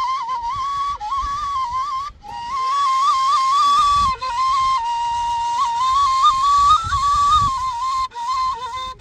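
A wind instrument, a flute, playing a simple melody that stays close to one pitch and moves in small steps up and down. It breaks off briefly about two, four and eight seconds in.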